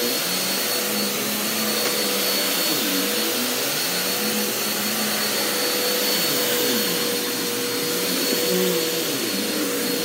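Bissell CleanView OnePass upright bagless vacuum running on carpet: a steady roar with a constant high whine, its lower hum wavering up and down as it is pushed back and forth.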